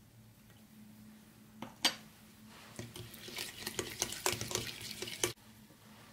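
Balloon whisk beating a wet kefir-and-egg batter in a ceramic bowl: a quick run of clicks and scrapes against the bowl starts about three seconds in and stops abruptly. Before it there is a single sharp knock.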